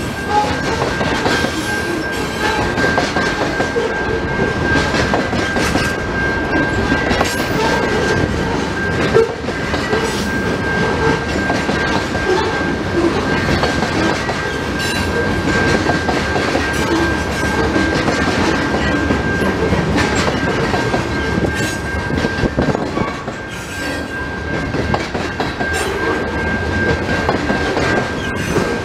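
Freight train of covered hopper cars rolling past at speed: a steady rumble with the clatter of wheels over the rails. A thin, steady high-pitched tone sounds over it throughout.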